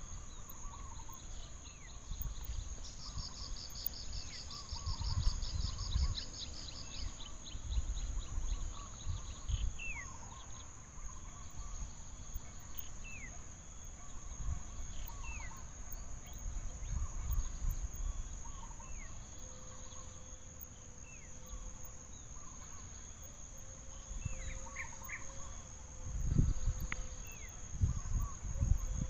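Outdoor forest ambience: a steady high-pitched insect drone, with a rapid pulsing trill a few seconds in and short falling chirps every second or two. Uneven low rumbles come and go, loudest near the end.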